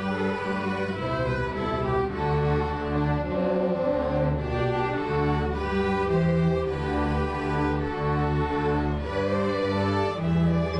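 A school string orchestra playing: bowed violins and cellos in held chords over low bass notes that change every second or so.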